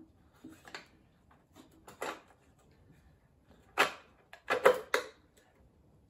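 Metal saw chain clinking and rattling in a few short clatters as it is worked over the drive sprocket and onto the guide bar of a vintage chainsaw, the loudest two coming about four and five seconds in.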